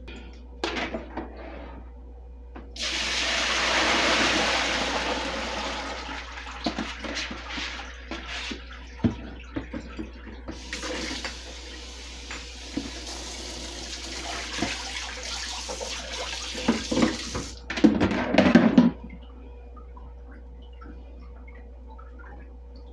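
Water running hard from a kitchen tap into the sink for about fifteen seconds, with a brief break partway through. A few knocks and clatters follow near the end.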